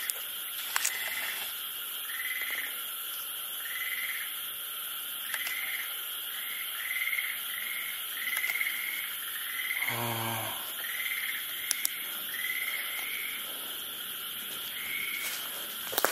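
Steady high-pitched chorus of night insects, with a short chirping call repeated about once a second over it. A brief low human vocal sound, like a grunt or breath, comes about ten seconds in.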